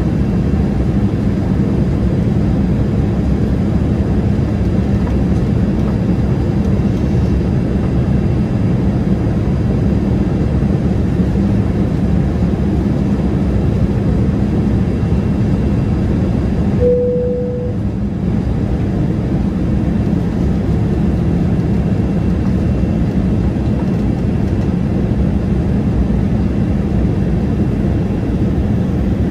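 Steady jet engine and airflow noise inside the cabin of a Boeing 787-8 in flight. About two-thirds of the way through, a single short tone sounds and the noise dips for a moment.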